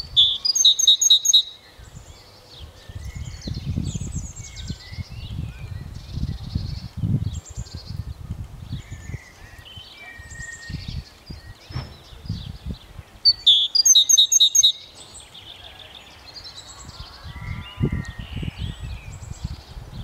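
Garden birds singing and calling, with two loud bursts of a quick run of repeated notes, one at the start and one about thirteen seconds in. A low, uneven rumble runs underneath.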